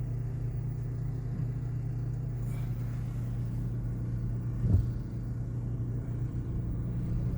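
Steady low drone of a car heard from inside the cabin as it rolls slowly, with a single thump just under five seconds in.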